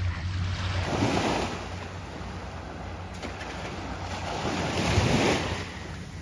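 Small sea waves washing up on a sandy beach, swelling twice, about four seconds apart, over a steady low rumble of wind on the microphone.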